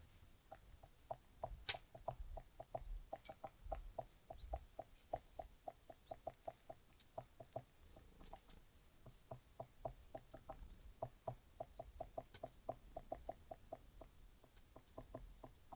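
Very cold, dry snow squeaking and crunching in quick short creaks, about three or four a second, with a few faint high chirps among them.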